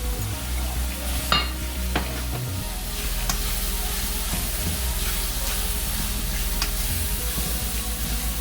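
Saltfish and sautéed vegetables sizzling in oil in a frying pan while being stirred, with a few sharp taps of the utensil against the pan.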